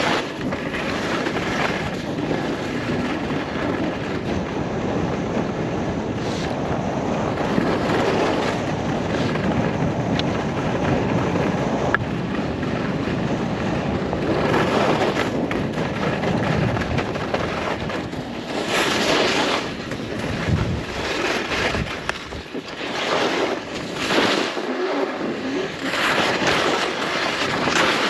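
Wind rushing over the microphone and skis hissing and scraping on snow during a downhill ski run. The scraping swells louder several times.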